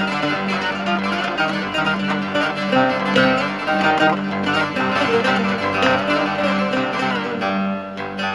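Live band music in the Turkish uzun hava style: a melody with a plucked-string sound plays over a steady low held note, an instrumental passage without singing.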